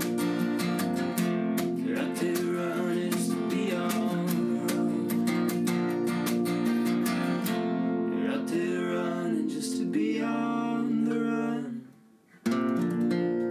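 Acoustic guitar strumming in a folk song's closing bars; near the end the playing stops for a moment, then one last chord rings out and fades.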